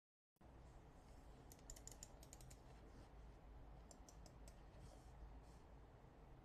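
Faint quick clicks from computer peripherals in two short runs, about a second and a half in and again around four seconds, over a low steady room hum.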